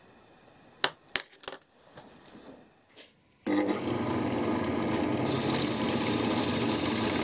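A few sharp taps as an awl marks a hole centre, then a benchtop drill press starts up and runs steadily, its twist bit boring into a wooden block. The cutting grows hissier about five seconds in as the bit goes deeper.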